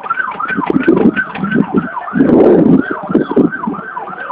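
A siren yelping, its pitch sweeping up and down about three times a second, with a loud burst of rushing noise about two seconds in.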